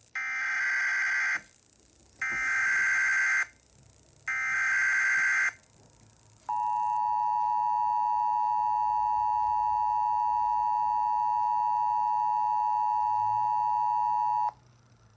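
Emergency Alert System SAME header: three bursts of warbling digital data tones, each just over a second long, then the two-tone EAS attention signal of 853 and 960 Hz held steady for about eight seconds and cut off sharply. The sequence announces a National Weather Service tornado warning.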